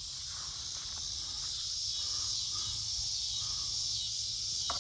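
A steady high-pitched hiss over a low hum.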